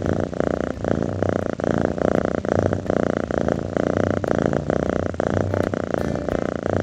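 An animal purring with a continuous, dense rumble.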